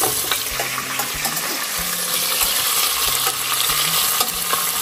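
Sliced onions and green chillies sizzling steadily as they fry in hot oil with whole spices in a pressure cooker, with a few light clicks of stirring.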